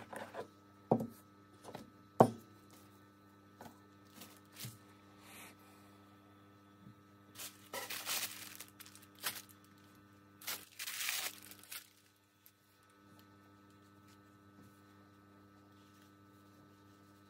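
Handling noises from icon-painting work at a bench: two sharp knocks in the first seconds and a few light ticks, then two rustling, rubbing bursts around the middle. A steady electrical hum runs underneath.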